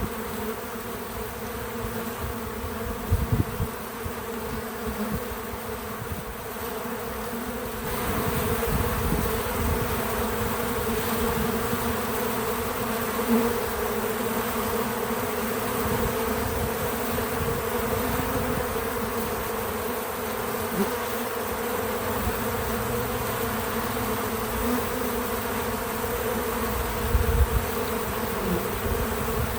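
Many bees buzzing at a feeder, a steady, dense hum that grows louder about eight seconds in, with a few brief low bumps.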